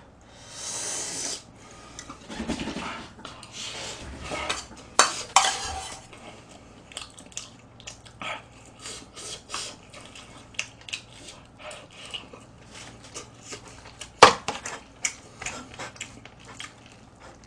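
A metal spoon clinking and scraping against a thin yellow aluminium pot as food is scooped, with sounds of eating. The clinks come in short, irregular taps, the sharpest about 14 seconds in.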